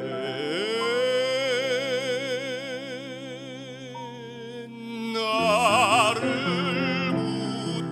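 A man singing a Korean hymn solo with wide vibrato over an instrumental accompaniment. He slides up into a long held note, then rises into a louder, higher phrase about five seconds in.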